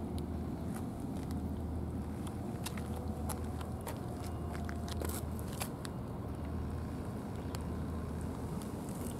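A cat eating flaked canned wet food from a tray, with a run of small wet chewing and lapping clicks, over a steady low rumble.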